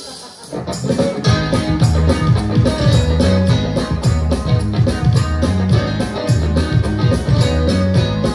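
Live band music: electric guitar and bass over a steady drum beat, kicking in about a second in.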